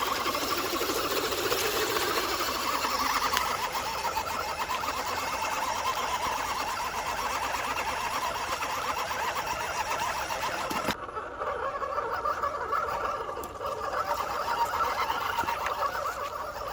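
Electric motor and gear drivetrain of a 1/10 scale 6x6 RC truck whirring steadily as it drives the trail. About eleven seconds in the high hiss drops away suddenly while the whir carries on.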